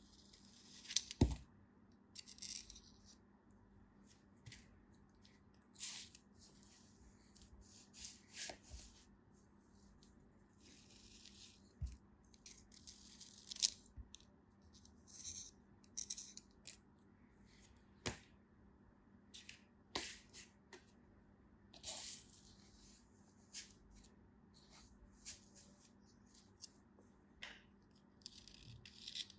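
Close-up handling sounds: irregular crisp crackles and sharp little clicks, one every second or two, over a faint steady hum.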